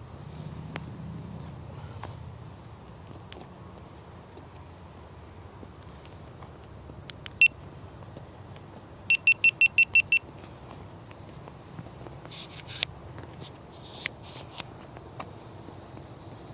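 A single high electronic beep, then about a second and a half later a quick run of seven identical beeps, about six a second, over a low steady rumble. A few sharp clicks follow near the end.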